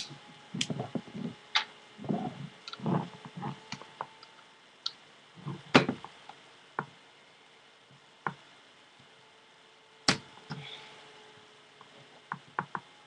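Irregular clicks and knocks of a Tippmann X7 Phenom paintball marker's parts being worked into place by hand during reassembly, with sharp loud clicks near the start, about six seconds in and about ten seconds in.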